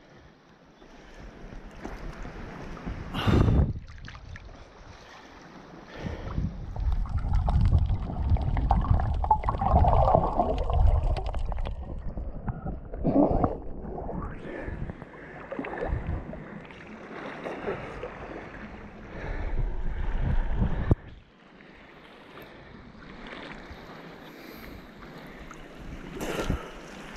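Seawater sloshing and splashing against a camera held at the surface by a swimmer. The wash is uneven, with several sudden louder splashes.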